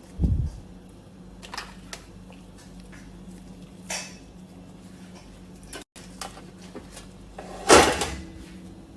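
Kitchen utensils and a serving dish knocking and clinking as cooked chicken pieces are laid on a platter of rice: a dull thump just after the start, a few light clicks, and a louder knock near the end.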